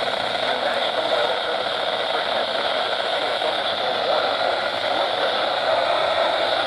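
Steady static hiss from a weather radio receiver with no broadcast voice on the channel: an even, unbroken rushing noise that does not change.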